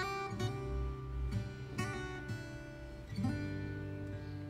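Instrumental background music, a run of plucked notes.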